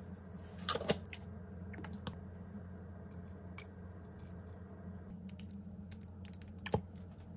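A few light clicks and taps from handling the containers while chili powder and a dark sauce are poured into a saucepan of oil, over a steady low hum. The clicks come in a short cluster about a second in and once more near the end.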